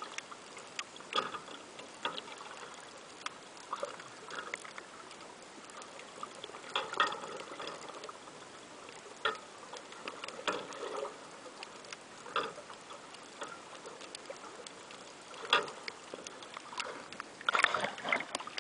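Water heard through an underwater camera's waterproof housing: a steady hiss with irregular clicks and short bubbly knocks, getting busier with splashing near the end.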